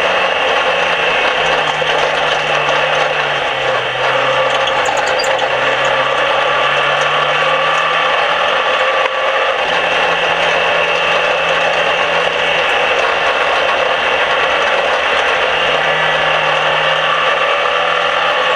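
Engine of a small dirt-track race car running hard, heard from inside the cockpit. It is loud and continuous, its note sinking and climbing slowly several times as the car laps the oval.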